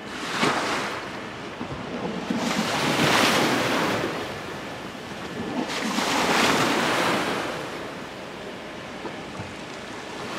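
Sea waves washing in against a concrete seawall, the rush of water swelling and falling away about every three seconds, with some wind on the microphone.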